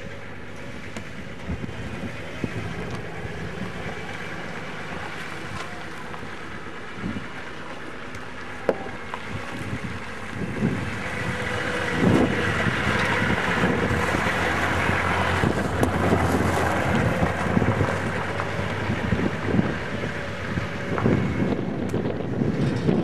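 Four-wheel-drive SUV engine running as the vehicle drives past close by, getting louder from about ten seconds in, with wind buffeting the microphone.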